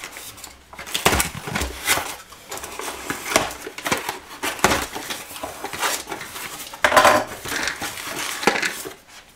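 Cardboard parcel being opened and unpacked by hand: the packing tape slit with a knife, the flaps pulled open and the contents rummaged. A busy run of scrapes, rustles and light knocks.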